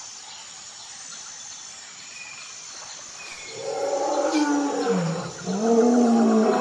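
A large animal calling in long, low pitched calls that slide down and back up in pitch, starting about halfway through, after a quieter stretch of faint background with a few faint high chirps.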